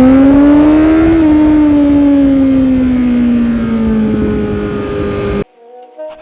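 Kawasaki Z900's inline-four engine breathing through a Yoshimura R77 full-system exhaust, its pitch rising for about a second, then slowly falling as the revs drop. The engine sound cuts off abruptly about five and a half seconds in.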